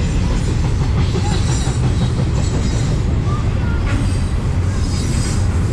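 Double-stack intermodal freight train's loaded well cars rolling past close by: a steady heavy rumble of steel wheels on rail, with a few faint short high squeaks.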